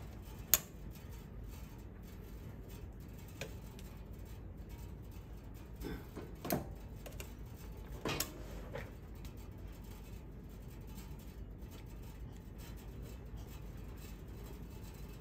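Small metal clicks and knocks from the presser foot parts of an industrial cylinder-bed sewing machine being handled and refitted. One sharp click comes about half a second in, and a cluster of softer knocks follows around six to nine seconds. A faint steady low hum runs underneath.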